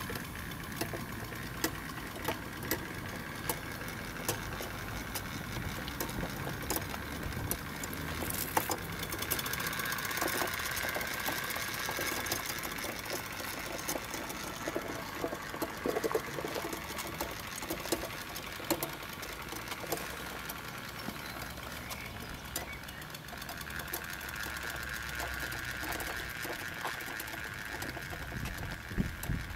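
1-inch scale Minnie model traction engine running under load, giving fast, steady exhaust beats with a hiss and many sharp mechanical clicks.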